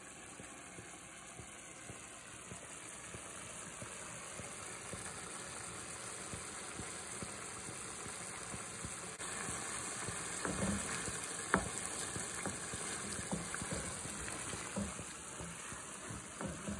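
Risotto simmering in chicken stock in a frying pan on a gas burner, a steady sizzling bubble that gets louder about nine seconds in. From about ten seconds in, a wooden spoon stirs the rice, knocking and scraping against the pan.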